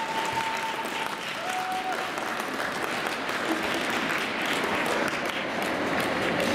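Arena audience applauding steadily.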